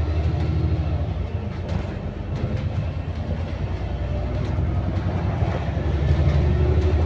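An ADL Enviro400MMC double-decker bus with a Voith automatic gearbox, heard from on board while it drives. A steady low engine and road rumble runs throughout, with faint held tones above it, and it grows a little louder near the end.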